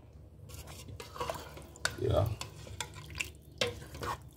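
Chicken broth being poured into curry chicken frying in an Instant Pot, the pot sizzling, with a spoon stirring and a couple of sharp clinks against the pot.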